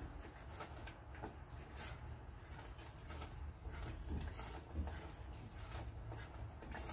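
Silicone spatula stirring thick brigadeiro in an aluminium saucepan on the heat: faint, irregular scraping strokes against the pan, a few each second, over a low steady hum.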